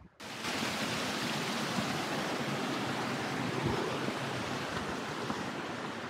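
Steady rushing of a fast-flowing river, starting abruptly just after the start and easing off slightly towards the end.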